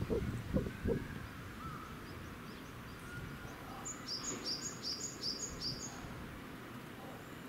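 A few low thuds in the first second, then a bird repeats a short high two-part chirp about six times, roughly three a second, over steady outdoor background noise.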